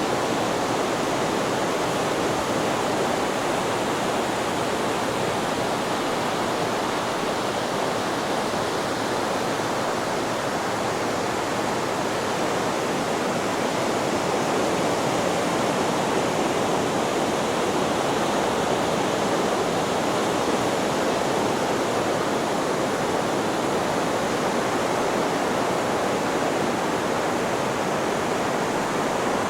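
Steady white-noise hiss, even and unbroken, without the rise and fall of breaking waves.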